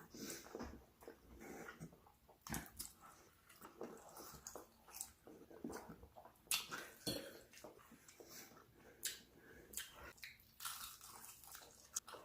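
Close-up eating sounds: chewing and biting into food, with irregular crunches and small clicks.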